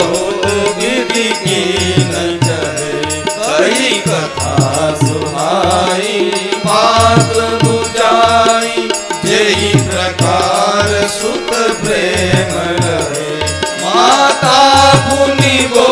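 Devotional hymn singing: a man's voice singing a Hindu stuti over musical accompaniment, with a steady beat from a drum.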